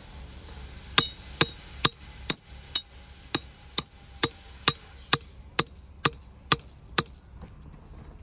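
Hammer striking a ribbed steel reinforcing-bar pin, driving it down through a plastic drainage-cell sheet into the ground. About fourteen sharp, ringing metallic blows come at roughly two a second, the first the loudest.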